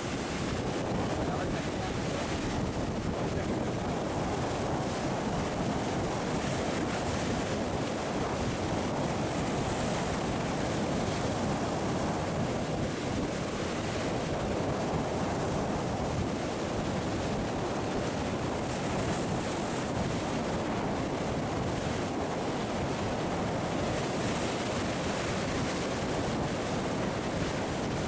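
Sea surf washing and breaking against rocks: a steady hiss and rumble of moving water that swells and eases as waves come in.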